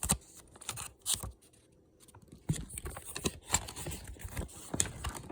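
Rustling and light clicks of small packaged parts and paper being handled, with a short pause about a second in.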